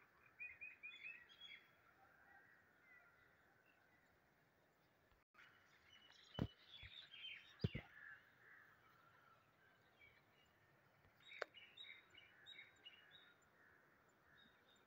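Faint chirping of small birds in the background, coming in a few short scattered runs. Three sharp clicks stand out above it, two close together near the middle and one later.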